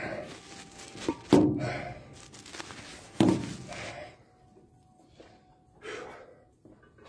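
Handling noise on a phone's microphone as the phone is moved and set in place: rubbing with two sharp knocks, about a second in and about three seconds in, then it goes much quieter.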